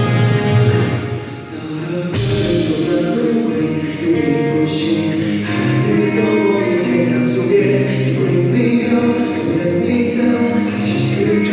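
Live rock band performance with singing, recorded from the audience. The music thins briefly about a second in, then the full band comes crashing back in at about two seconds.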